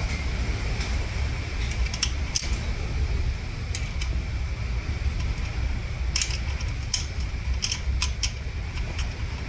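Light metallic clicks and clinks, irregular and about a dozen in all, as a small combination wrench turns the nut on a CVT valve body's gear selector lever, over a steady low rumble.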